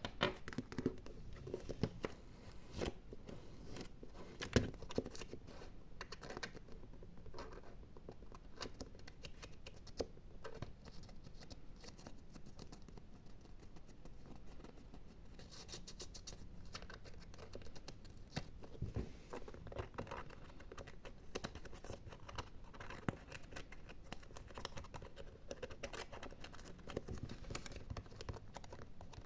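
Close-miked ASMR scratching and gripping: fingernails scratching and fingers gripping an object, a dense, continuous run of small crackles and clicks, with a few louder knocks in the first few seconds.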